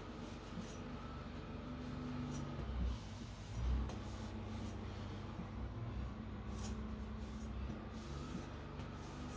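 Faint rubbing of a cloth wiping a nakiri blade dry, with two soft handling thumps about three and four seconds in, over a steady low hum.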